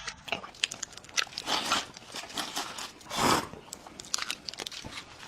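Close-miked eating: chewing and crunching with many short sharp mouth clicks, and a couple of longer noisy bites or slurps.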